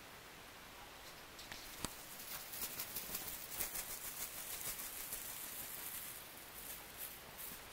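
Soft rustling and scratching from a young Bengal kitten's claws and paws moving over a fleece cat bed close to the microphone, starting about a second and a half in as a run of quick light ticks.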